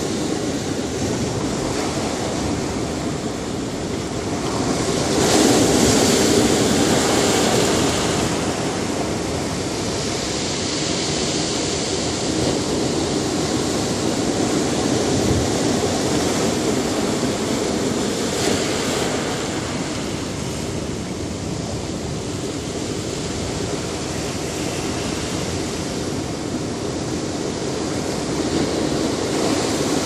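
Ocean surf breaking and washing over rocks: a steady rushing with a big surge about five seconds in and smaller surges later.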